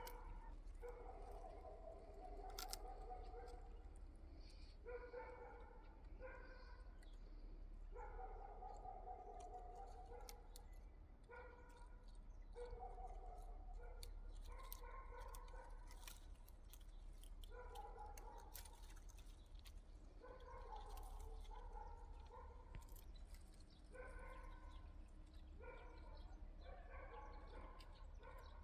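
Domestic cat meowing over and over, a call every second or two, some of them drawn out and falling in pitch.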